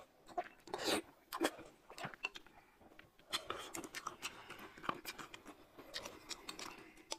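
Soft eating sounds: scattered small clicks and taps of spoons on a glass mug and a ceramic bowl, with quiet chewing and sipping.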